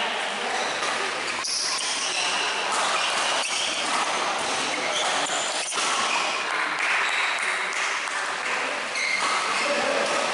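Badminton rackets hitting a shuttlecock in a doubles rally, a sharp crack about every two seconds, over short high squeaks of shoes on the court floor and voices echoing in a large hall.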